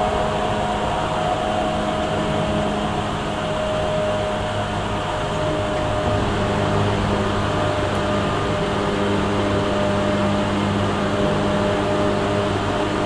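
Interior running noise of a Tokyu 8500 series electric train car with Hitachi traction motors, running at a steady speed: an even rumble of wheels and rails with a steady motor hum.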